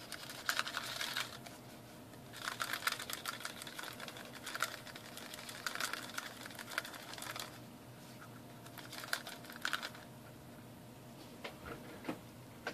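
Small metal battery terminals clicking and rattling inside a lidded plastic tub of liquid tinning solution as it is shaken and swirled by hand, in several bouts with short pauses between.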